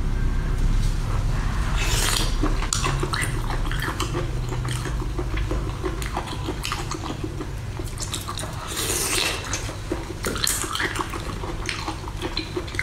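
Wet squelching and dripping as a large piece of shellfish is pressed and swirled in a glass dish of chili oil, with scattered light clicks and clinks against the glass. A steady low hum runs underneath.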